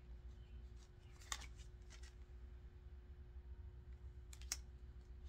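Tarot cards being flipped and slid against one another in the hands: a cluster of faint crisp clicks about a second in and another couple near the end, over a steady low hum.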